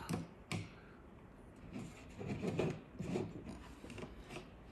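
Flathead screwdriver scraping and prying under the battery management board of a Milwaukee Red Lithium battery pack, against its plastic cell holder: a sharp click about half a second in, then several short bouts of rough scraping.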